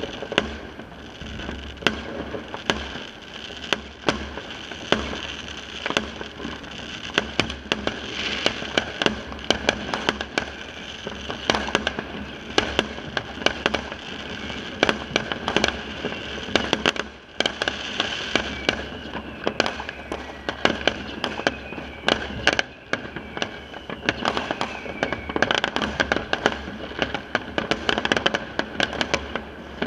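Many fireworks going off across a neighbourhood at once: an unbroken barrage of sharp bangs, several a second, near and far, over steady crackling.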